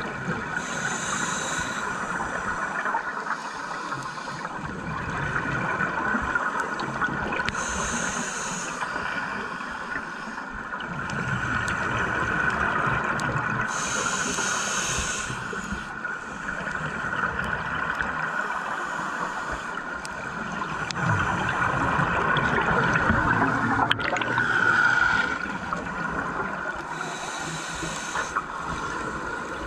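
Scuba diver's regulator breathing heard underwater, with a burst of exhaled bubbles every several seconds over a steady underwater hiss and hum.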